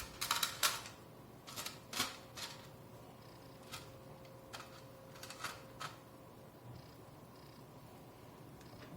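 Small sharp clicks and taps, several close together at first, then one every second or so until about six seconds in: a screwdriver and small screws working against a metal HDD caddy as a hard drive is screwed into it.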